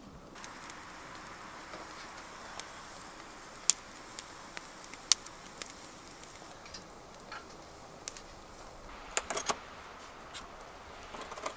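Wood fire crackling in a perforated steel Petromax fire pit, a soft hiss with scattered sharp pops, two of them loud. Near the end, a quick run of metal clinks and rattles as the roof-top tent's ladder and fittings are handled.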